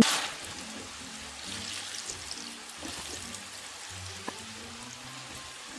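Cornstarch-coated potato peels deep-frying in hot oil: a steady hissing sizzle, with one light tap about four seconds in. Soft background music plays underneath.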